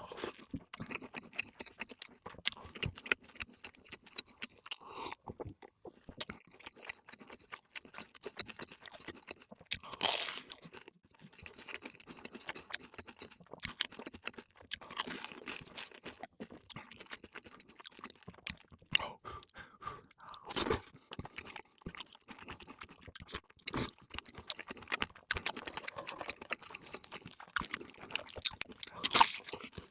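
Close-miked eating: a person chewing and biting crunchy food in an irregular run of crisp crunches and smacks, with a few louder crunches about a third of the way in, about two-thirds in and near the end.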